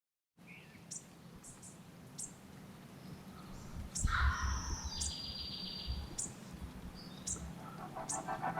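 Outdoor ambience of birds chirping: short high chirps repeating roughly once a second over a steady background hiss, with a brief louder rush of noise about four seconds in.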